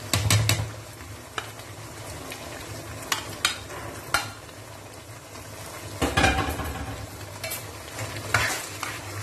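Chicken in ketchup gravy sizzling in a non-stick wok, with a few sharp taps of the spatula against the pan early on. From about six seconds in, the spatula stirs the freshly added chopped vegetables through the sauce, louder and busier.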